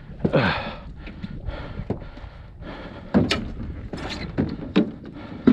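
A rush of scraping near the start, then a string of sharp knocks and thuds on a small boat's hull as it is worked free of the shallow bottom.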